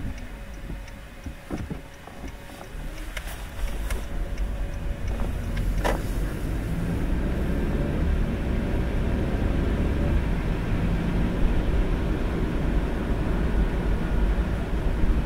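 Car driving on a wet, sleety road: a steady low rumble of tyres and engine that drops off briefly and then builds again as the car picks up speed, with a few short clicks about three to six seconds in.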